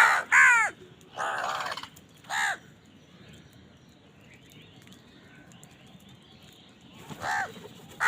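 Crows cawing: four harsh caws in quick succession in the first few seconds, the third drawn out longer, then a pause of about four seconds before another caw near the end.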